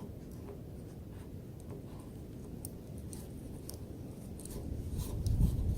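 Light scraping as a small stainless-steel pocket knife blade shaves thin curls off a piece of wood, feathering it. A low rumble rises near the end.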